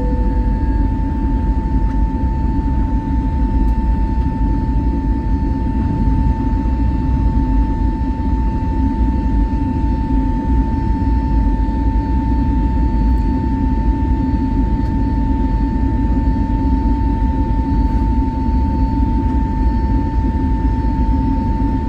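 Jet airliner's engines at climb power heard inside the passenger cabin just after take-off: a loud, steady rumble with a constant high whine.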